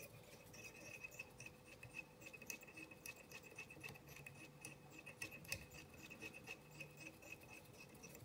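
Near silence: faint scratching and rubbing as black yarn is wound onto a hook held in a fly-tying vise, with scattered faint ticks over a faint fast ticking in the background.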